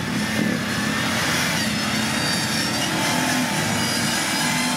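Off-road 4x4's engine running at a steady, fairly constant speed.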